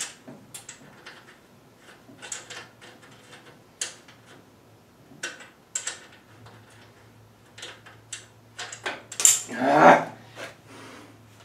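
Small metal clinks and taps of a nut, washer and tools being handled while a nut is started on a front-suspension bolt by hand. About nine seconds in there is a louder rasping noise.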